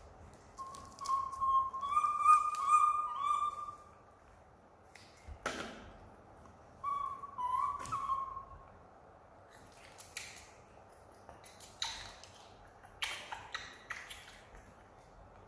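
Baby macaque making thin, whistle-like coo calls, a run of them in the first few seconds and another short bout about seven seconds in, followed by scattered soft clicks and smacks of monkeys eating.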